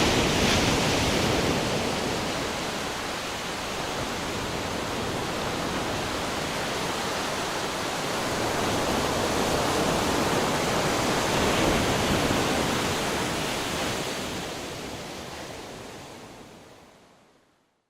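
Sea waves: a steady rush of surf that swells twice and then fades out to silence near the end.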